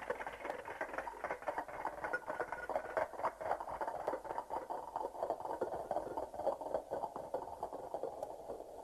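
A radio-drama sound effect of many footsteps: a dense, irregular pattering of a group walking off, thinning out near the end.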